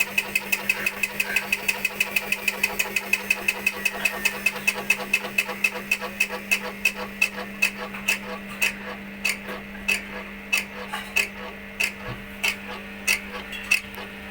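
IFB front-load washing machine knocking with each turn of its drum, a sharp click about five times a second at first and slowing to under two a second as the drum slows, over a steady hum. The knock is the sign of a damaged belt pulley.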